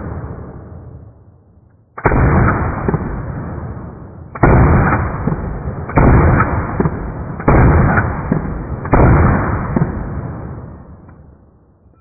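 Gunfire at a shooting range: five loud volleys of shots, each starting sharply and trailing off over a second or two, with the fading end of an earlier volley at the start.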